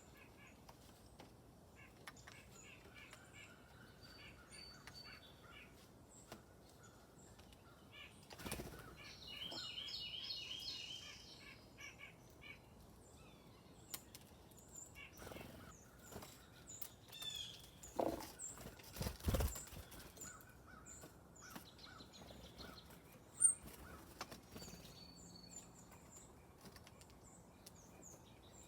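Small songbirds chirping and calling, with a short song of quickly repeated notes about ten seconds in. Several wing flutters come through as soft thumps, and one sharp chirp comes near the end.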